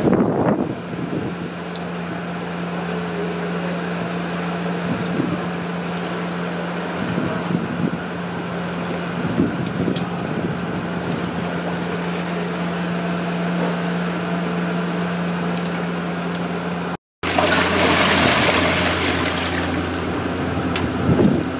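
Water sloshing and splashing as a tightly packed group of nurse sharks jostles in the shallows, with short surges of splashing and a louder rush of water near the end. Under it runs a steady low motor hum.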